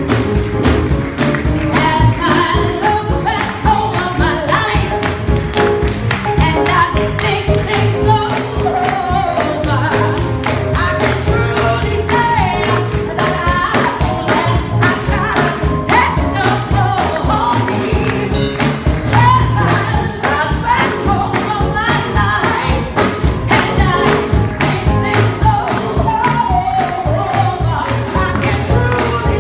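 Gospel choir singing with a female lead singer on a microphone, the choir clapping on the beat.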